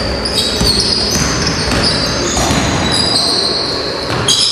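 Basketball game sounds in a gym hall: the ball bouncing on the wooden floor and players' sneakers squeaking in a run of high, short-held squeals over the hall's echoing background noise.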